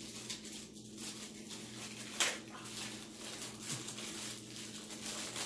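Plastic wrapping crinkling and crackling as it is worked off a small camera by hand, in a run of short rustles with one sharper crackle about two seconds in.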